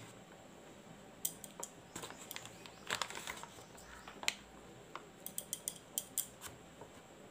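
Light scattered clicks and taps of a spoon against a steel plate as gram flour is spooned onto grated potato, with a quicker run of taps towards the end.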